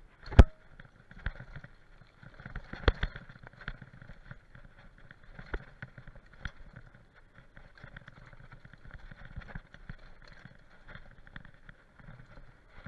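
Mountain bike rattling and knocking as it runs fast down a rough dirt trail, over a low rumble of tyres on the ground. There is a sharp knock about half a second in and another about three seconds in.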